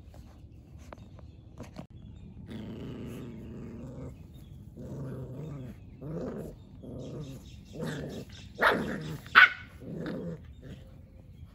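Australian Shepherd puppies growling and barking in rough play: a long growl, then a run of short growls, with two louder barks close together near the end.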